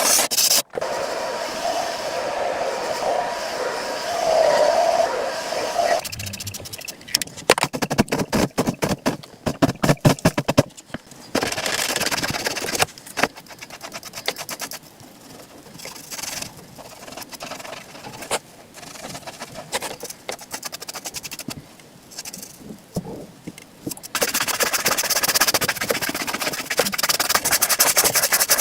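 A leather boot being worked by hand: a shoe brush and cloth scrub and rub it in a series of passes. Strokes come fast and evenly for several seconds, then slower rubbing follows, and a steady hissy brushing runs near the end.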